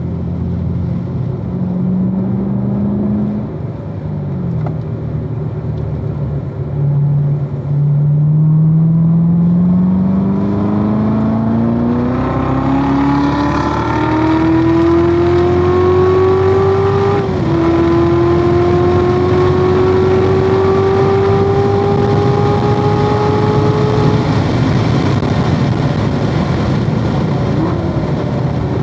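2016 Corvette Z06's supercharged 6.2-litre V8 under hard acceleration on track, its pitch rising steadily. An upshift about halfway through drops the pitch sharply before it climbs again. About three quarters through the engine note falls away as the car lifts off, leaving wind and tyre noise.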